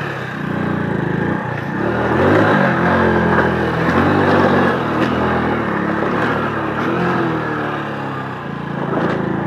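Motorcycle engine revving up and down under load as it climbs a steep, rocky off-road track.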